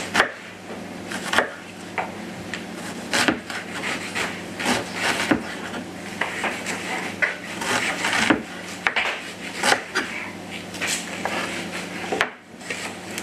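Chef's knife dicing an onion on a plastic chopping board: irregular knocks of the blade striking the board, with some scraping as it slices through, stopping about a second before the end.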